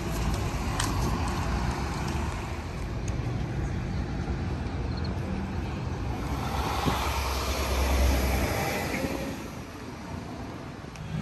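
Street traffic noise, with a car passing close and loudest about eight seconds in.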